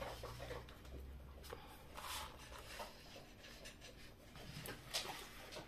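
Faint scraping of a wide spatula's blade drawn over paper card, smoothing a freshly glued card flat, with a few short strokes, the clearest about two seconds in and again near the end.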